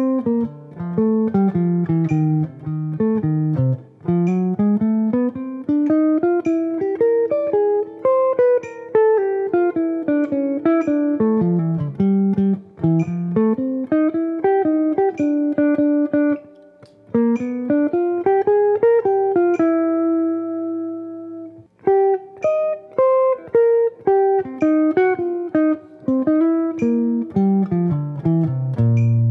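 Archtop jazz guitar playing a single-note bebop line in swung eighth notes over a blues, with a metronome clicking once a bar. About two-thirds through, one note is left ringing before the line picks up again.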